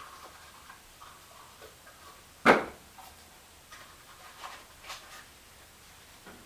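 A small cardboard box and its foam padding being handled by gloved hands, making light clicks and rustles, with one sharp knock about two and a half seconds in.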